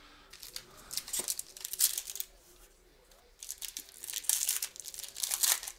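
Trading-card packaging and cards being handled, crinkling and rustling in two stretches with a short quieter pause in between.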